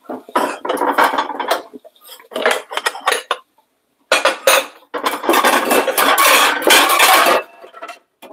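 Bowls and dishes clattering and clinking as a bowl is taken down from a stack on a kitchen shelf, in several short bursts of knocks and scrapes, with the longest run of clatter near the end.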